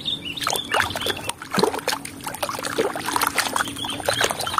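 Muddy water splashing and sloshing in a plastic basin as a toy crocodile is dipped and scrubbed by hand, with irregular splashes and dripping.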